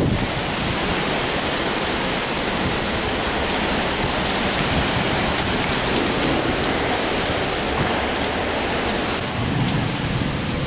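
Heavy rain with strong wind from a severe thunderstorm on the outskirts of a tornado, a loud, steady wash of noise.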